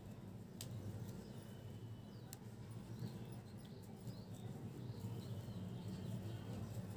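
Faint background noise: a low steady hum with a few faint high chirps, and two sharp clicks, one about half a second in and another near two and a half seconds.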